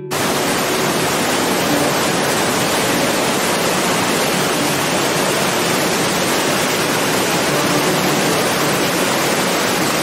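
Waterfall: a loud, steady rush of white water falling and churning, even and unbroken throughout.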